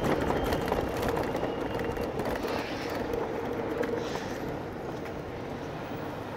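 Street traffic noise: vehicles running with a steady low hum, easing off slightly after the first couple of seconds.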